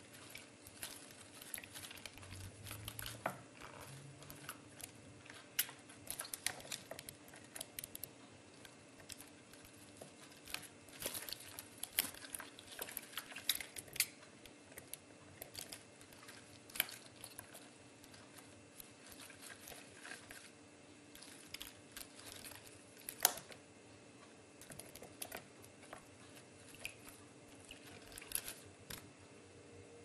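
A budgerigar bathing in a shallow tub of water among wet romaine lettuce leaves: irregular small splashes and pattering droplets with crinkling of the leaves. A faint steady hum runs underneath.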